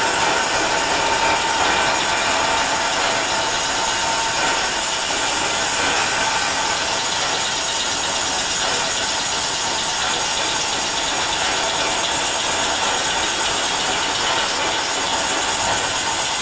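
A dense, steady mechanical clatter and whir from a live experimental music performance that recreates the sound of textile spinning machinery, with a faint held tone in the first part.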